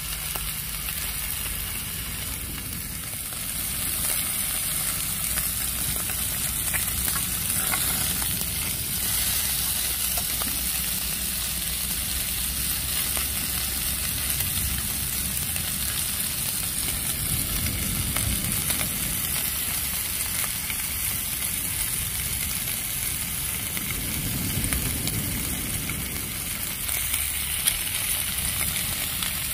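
Slices of pork sizzling steadily in a ridged grill pan as they fry.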